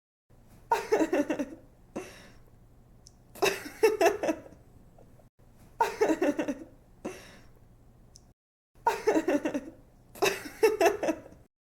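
A young woman laughing in bright, giggly bursts of about a second each, five in all, with short pauses and a quick breath between them.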